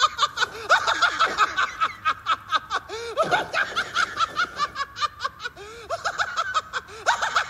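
A man's high-pitched, rapid laughing: several short bursts a second in an unbroken run.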